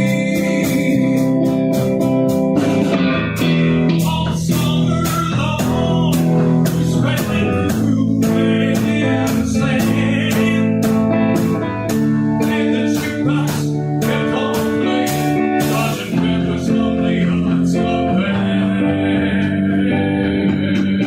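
A band playing a blues-flavoured song: guitar over a bass line, with a steady drum beat on the cymbals.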